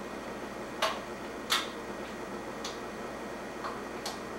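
Claw hammer tapping lightly on an aluminium drink can, banging a ring into a homemade soda-can stove: about five sharp taps at uneven spacing, the second the loudest.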